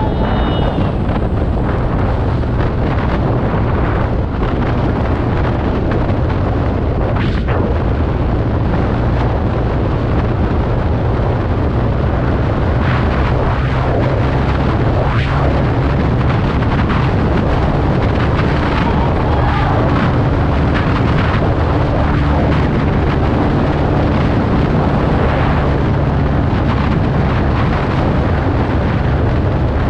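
Wind buffeting hard on the microphone over the TVS Ntorq 125 Race XP scooter's single-cylinder engine running at high speed under steady throttle, about 80 to 96 km/h. The rumble is loud and continuous throughout.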